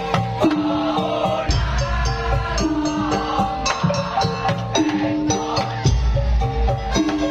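Music with a steady percussive beat, held pitched melody lines and a recurring low bass.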